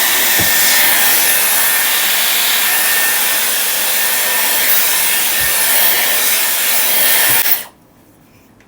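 Dyson hair styler running at full blow with a steady rush of air and a faint high whine, switched off suddenly near the end.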